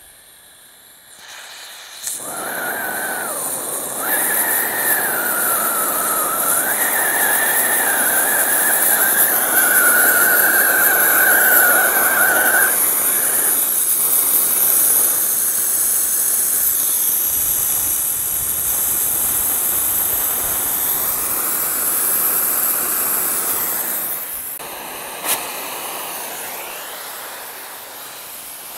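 Oxy-fuel cutting torch lit and burning with a loud, steady hiss. A wavering whistle runs under the hiss through roughly the first half while the torch valves are adjusted, and a single sharp click comes near the end.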